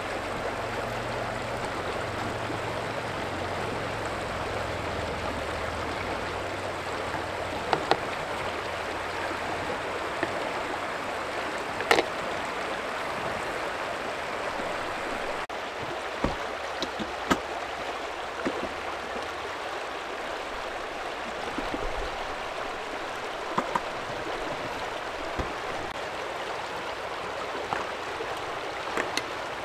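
Shallow stream running over a stony bed, a steady rush of water, with a few light clicks and taps now and then.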